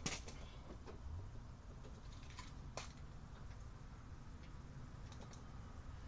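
Scattered clicks and light taps of a screwdriver and small hand tools against a coffee maker's base, the loudest click right at the start and another about three seconds in.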